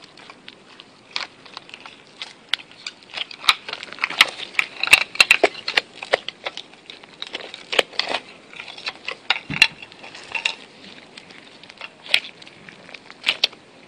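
Slime being stretched, poked and squeezed by hand, giving irregular clicks and pops that come thickest in the middle.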